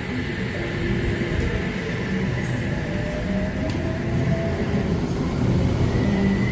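Electric suburban passenger train running through the station: a steady rumble with a faint whine that rises slowly about halfway through and again near the end.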